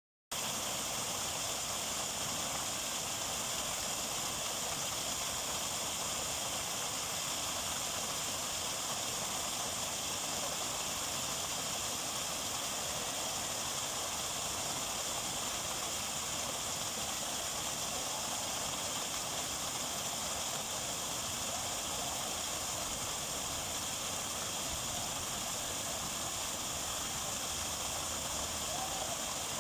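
Small river waterfall: water spilling over with a steady, unbroken rushing hiss.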